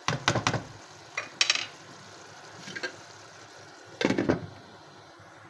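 A spatula scraping and knocking in a non-stick wok as a simmering vegetable curry is stirred, a few strokes in the first second and a couple more after, then a glass lid clattering onto the wok about four seconds in, the loudest sound. A faint sizzle of the curry cooking underneath.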